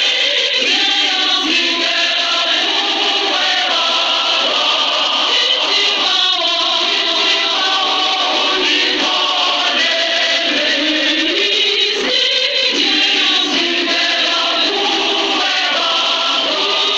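A large choir singing gospel music, many voices together, continuously.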